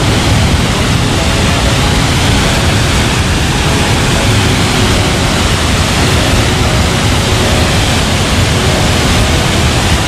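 Large waterfall: a great volume of water falling from a height, a loud steady rush.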